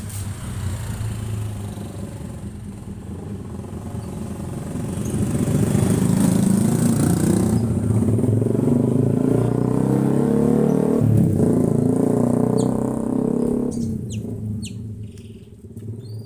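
A passing motor vehicle's engine, building up to its loudest through the middle and fading away near the end. A few short, high bird chirps come through as it fades.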